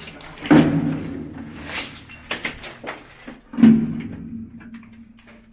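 Two loud bangs about three seconds apart, each followed by a low ring that fades over a second or two, with a few lighter knocks between them.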